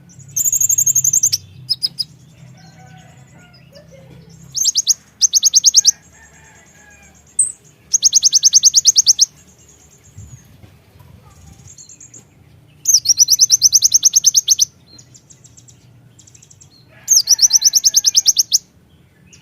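Konin (kolibri ninja) sunbird singing in five loud bursts of very rapid, high-pitched trilled notes, each burst lasting one to two seconds, with short pauses between them.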